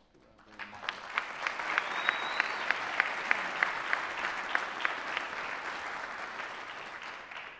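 Audience applause, swelling about half a second in and dying away near the end, with loud, sharp claps close by at a steady pace of about three a second through the first few seconds.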